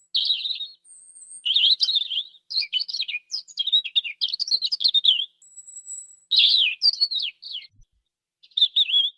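European robin singing: several quick, warbling phrases of rapidly changing high notes, separated by short pauses, with a few thin, very high whistles between them.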